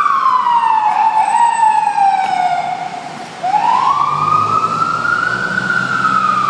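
Fire engine siren wailing, its pitch sliding slowly down, then jumping back up a little past halfway and rising and falling again.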